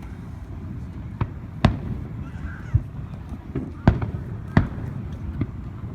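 Fireworks going off: a string of about seven sharp bangs at irregular intervals, the loudest about four seconds in, over a steady low background rumble.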